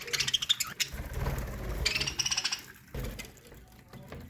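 Budgerigars chattering in two short bursts of high, buzzy, rapidly pulsed calls, at the start and again about two seconds in, with a low rumble in between.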